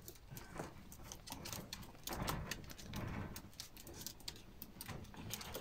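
Puppy eating dry kibble from a bowl: quick irregular crunches and small clicks of kibble against the bowl.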